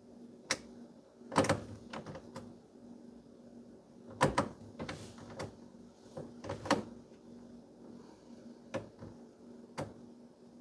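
A string of irregular clicks and knocks over a faint steady hum in a car's cabin. No fuel pump is heard running: with only the fuel pump fuse in, the pump stays off.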